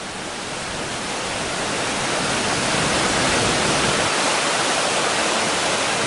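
Waterfall rushing in a steady roar of falling water, growing louder over the first couple of seconds and then holding even.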